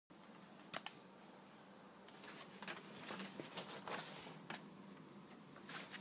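Faint room tone with a steady low hum, broken by scattered short clicks and rustles, most of them between about two and four and a half seconds in.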